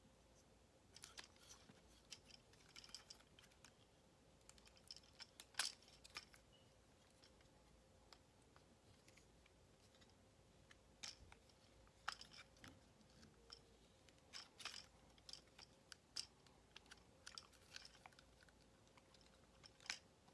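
Plastic joints and parts of a Transformers Studio Series Voyager Class Megatron action figure clicking and creaking as it is handled and transformed: faint scattered clicks, the sharpest about a quarter of the way in, over a faint steady hum.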